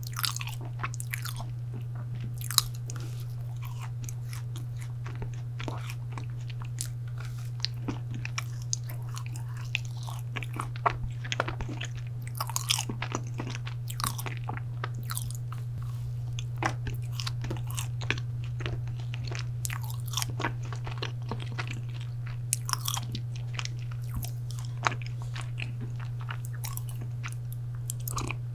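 Close-miked biting and chewing of a chocolate brownie: irregular soft bites and chewing with many small mouth clicks, over a steady low hum.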